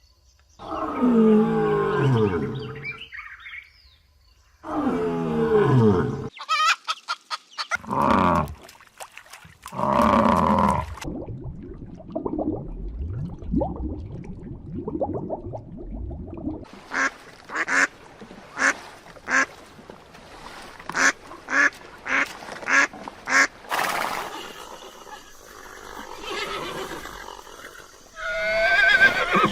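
A series of animal calls. In the first ten seconds come several drawn-out calls that fall in pitch, then a run of short, sharp sounds about twice a second, and another call near the end.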